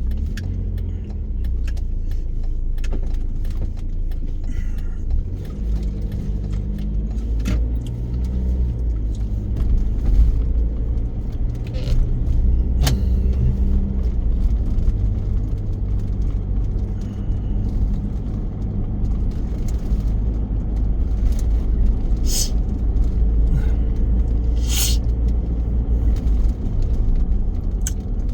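Car driving, heard from inside the cabin: a steady low rumble of engine and road noise, with scattered small clicks and rattles. Two sharper crackles come near the end.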